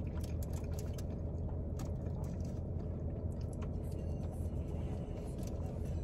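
Steady low hum inside a stationary car's cabin, with a few faint short clicks.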